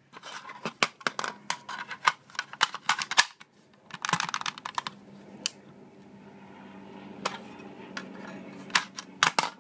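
Sharp metal and plastic clicks and rattles of an AR-15 magazine being handled at the magwell: seated, released by pressing the bullet button with the tool mounted on the magazine, and pulled out. A flurry of clicks comes at the start, a quieter stretch in the middle, and more clicks near the end.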